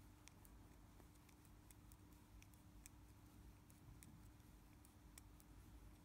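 Faint, irregular clicking of size 4.5 knitting needles as stitches are worked along a row, over a low steady hum.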